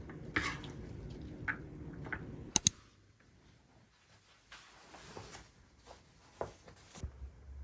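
Metal spoon clinking against a ceramic dish over a low steady hum, with two sharp clicks close together about two and a half seconds in. Then a quiet room with soft clothing rustles and light taps of slippered feet shifting.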